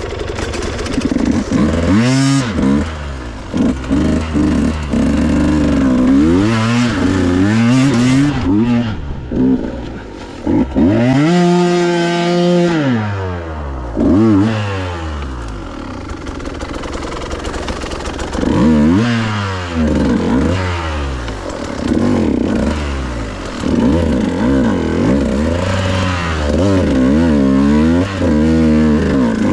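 Husqvarna TE150i two-stroke dirt bike engine revving up and down over and over under changing throttle on a hill climb. About eleven seconds in it holds one long rise and fall in pitch.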